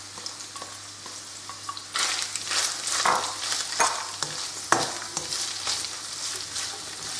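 Chicken pieces and chopped onion sizzling in hot oil in a non-stick wok, stirred with a spatula. The stirring grows louder about two seconds in, with a few clicks of the spatula against the pan.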